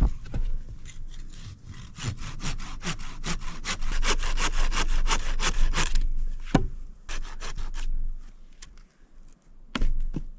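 Hand saw cutting wood in quick, even back-and-forth strokes. The strokes run thickest in the middle, then thin to a few scattered ones near the end.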